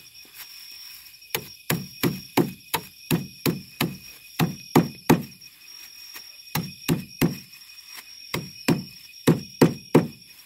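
Knife chopping food on a wooden plank table: sharp knocks about three a second, in a long run, then two shorter runs after brief pauses.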